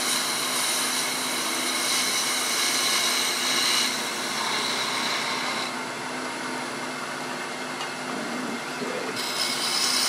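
Wood lathe running while a spindle gouge cuts a small round bead of wood: a steady motor hum under the hiss of the cut. The cutting hiss thins about six seconds in and picks up again near the end.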